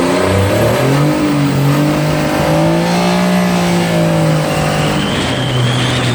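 Small motorboat engines running and revving, their pitch rising and falling, with more than one engine at once. A thin high whine rises in about a second before the end.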